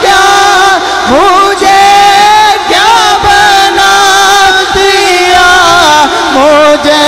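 A male voice singing a naat (an Urdu–Punjabi devotional song) into a microphone over a sound system, holding long notes that bend and waver in ornamented runs.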